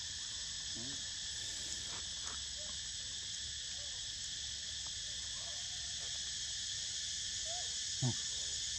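Steady, high-pitched chorus of insects buzzing without a break, with a few faint short chirps scattered through it. A brief low call falls sharply in pitch about eight seconds in.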